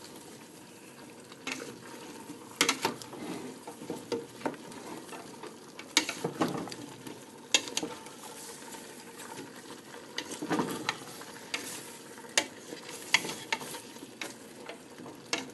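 A spatula stirring carrot and potato chunks through thick curry sauce in a pot, with irregular scrapes and knocks against the pot over a steady sizzle of the sauce cooking.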